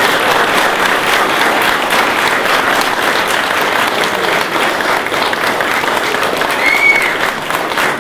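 Wedding guests applauding, a steady dense clapping, with one short high-pitched call near the end.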